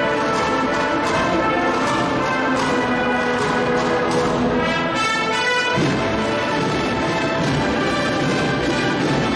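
A Spanish agrupación musical (Holy Week band of cornets, trumpets, trombones, tubas and drums) playing a processional march: held brass chords, the sound turning fuller about six seconds in.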